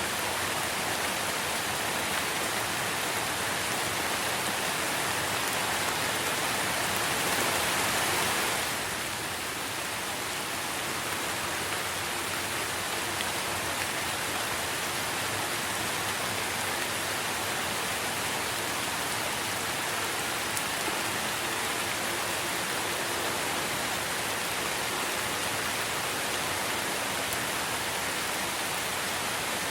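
Steady rain falling on tree leaves, a dense even hiss that swells a little heavier about a quarter of the way in, then eases back.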